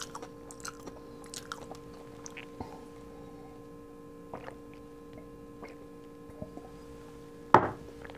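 Small wet mouth clicks and swallows as a drink is sipped from a small glass, over a steady faint hum. A short louder sound comes about seven and a half seconds in.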